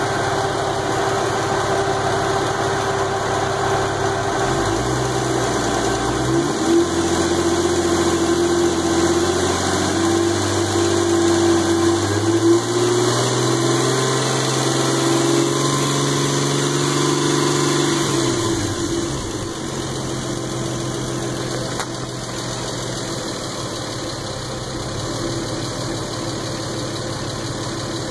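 Lexus IS300's 2JZ-GE inline-six running. It idles, is held at higher revs from about five seconds in, and drops back to idle at around eighteen seconds.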